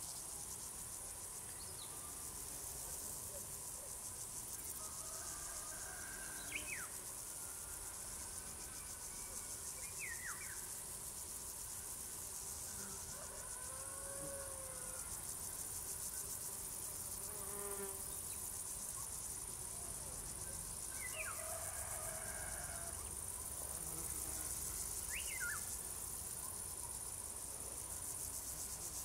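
Crickets singing: a dense, steady, high-pitched chirring that carries on without a break. A few faint short sweeping calls sound now and then behind it.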